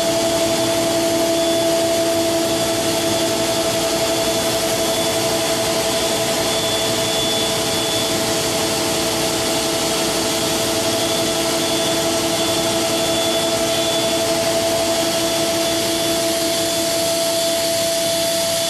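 High-speed milling spindle of the 5-axis universal head on an Okuma MCR-B II machining center, spinning steadily: an even whine of several tones over a hiss.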